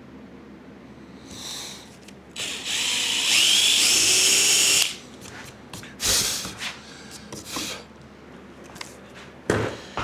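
Handheld power drill running for about two and a half seconds, its whine rising in pitch as it speeds up, boring a hole in a table saw insert plate to be tapped for a set screw. A few short knocks and bursts follow.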